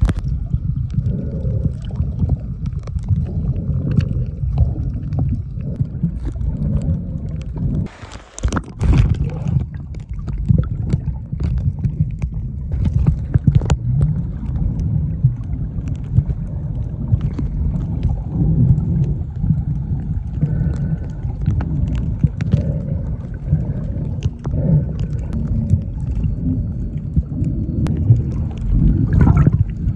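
Muffled water sound picked up by a phone sealed in a waterproof pouch while snorkeling: a constant low rumble of water with scattered clicks and knocks from handling. It dips briefly about eight seconds in, then returns with a short splashy burst.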